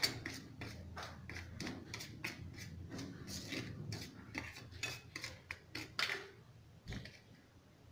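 Dry semolina and cornflour being mixed by hand in a stainless steel plate: quick repeated gritty scraping strokes of fingers and grains against the metal, fading near the end, with one low knock.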